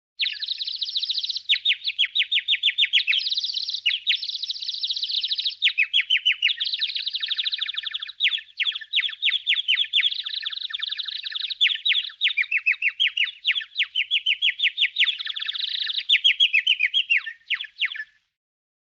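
Bird chirping in a fast, continuous trill of quick falling chirps, many a second, in phrases with brief breaks. It stops abruptly near the end.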